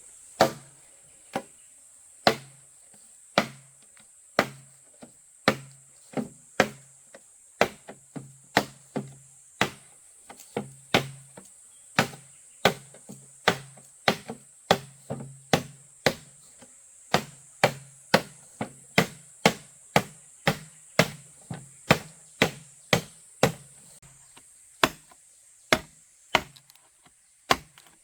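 Repeated chopping strokes of a blade into wood, a little more than one a second at an uneven working pace, each stroke a sharp crack with a short low ring after it. A steady high-pitched drone runs underneath.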